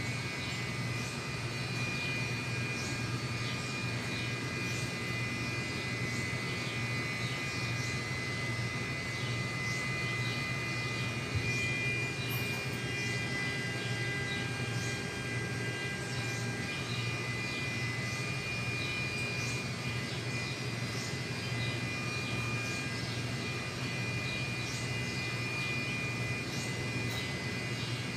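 A steady mechanical drone with a low hum and a thin high whine, unchanging throughout, with faint high chirps scattered over it.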